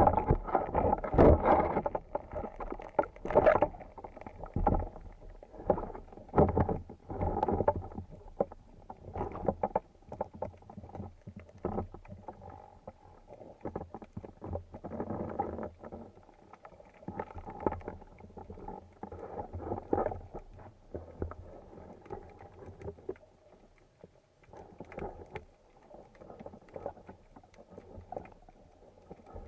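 Water sloshing and splashing in irregular surges around the camera, loudest in the first several seconds and then weaker.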